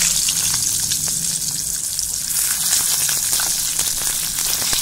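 Masala-stuffed green chillies frying in hot oil as they are laid in one by one: a steady sizzle with scattered crackles and pops.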